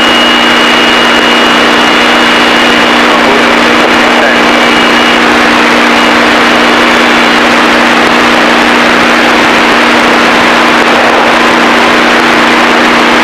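Steady drone of a Piper Seneca's twin piston engines and propellers in flight, heard inside the cockpit, loud and unchanging. A faint high steady tone sits over it for about the first five seconds.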